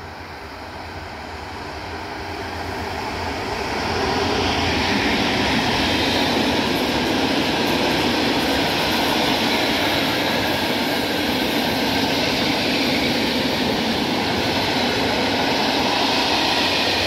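Freight train of tank wagons approaching and then rolling past close by, a steady noise of wheels on rail that builds over the first four seconds and then holds even.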